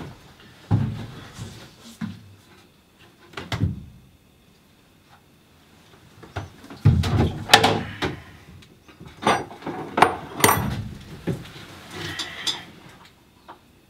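Irregular knocks, thumps and clatter of someone moving about and handling gear in a wooden boat cabin, louder and busier from about seven seconds in.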